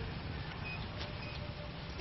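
Steady outdoor background noise, a low rumble with a hiss over it, and two faint short high beeps about a second in.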